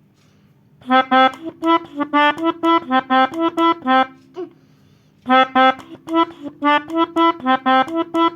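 Pianika (melodica) playing quick short notes, mostly alternating between two neighbouring pitches. The notes come in two runs of about three seconds each, with a pause of about a second between.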